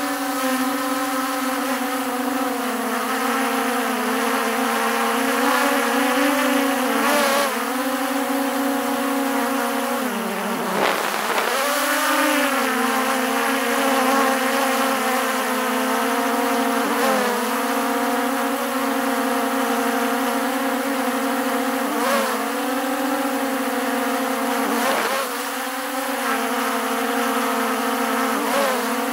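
DJI Mini 3 Pro quadcopter's motors and propellers whining steadily, heard from a camera mounted on top of the drone. The pitch dips briefly several times as the drone manoeuvres, most deeply about ten seconds in.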